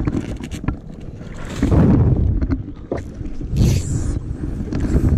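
Rumbling handling and wind noise with scattered knocks on a small fishing boat while a fish is netted. Two louder noisy surges come about two and three and a half seconds in.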